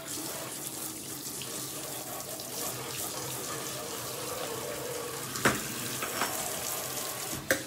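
Kitchen tap running steadily into the sink during dishwashing, with two sharp clanks of cookware, one about five and a half seconds in and one near the end.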